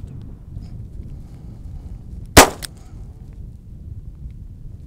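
A single pistol shot about halfway through, a sharp crack with a fainter second crack right after it.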